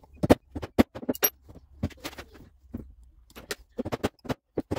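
Hammer striking a steel pin punch, driving the greased cross pin that locks the new drive gear onto the slide-out motor's shaft. About a dozen sharp metal taps at an uneven pace, a few with a brief high ring.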